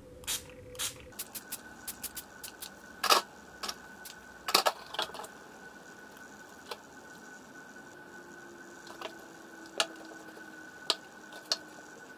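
Spray bottle of setting mist spritzed at the face in a few short bursts, followed by scattered small clicks and taps of handling.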